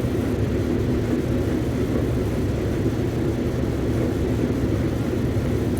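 Steady low hum and rumble of constant background machinery noise, unchanging throughout.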